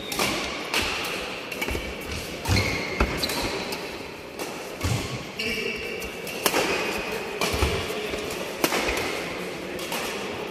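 Badminton doubles rally: rackets striking the shuttlecock with sharp clicks, shoes squeaking on the synthetic court mat, and low thuds of feet landing.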